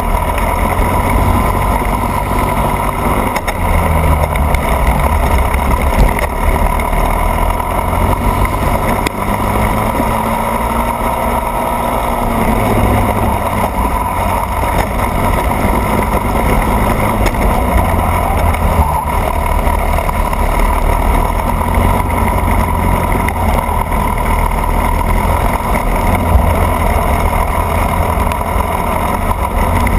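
Racing kart's engine running at speed, heard from a camera mounted on the kart, its note rising and falling a few times through the lap.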